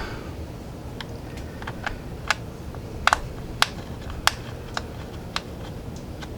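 Scattered sharp clicks and taps, about ten spread irregularly, from handling computer parts while an M.2 SSD is fitted into a motherboard slot.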